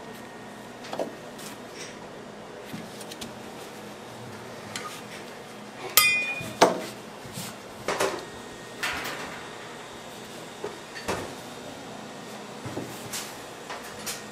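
Scattered knocks and thumps from a large mass of hard candy being handled, rolled and stretched on a work table. About six seconds in comes a sharp ringing clink, the loudest sound, followed by a thump.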